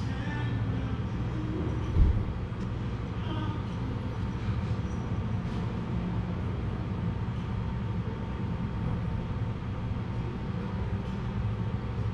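Steady low rumble of background room noise, with a single thump about two seconds in.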